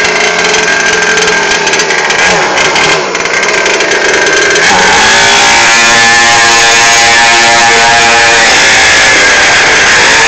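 Orion 50 mini dirt bike's small 50cc engine running loud and being revved. The note sweeps up about four and a half seconds in and holds high and steady as the bike pulls away.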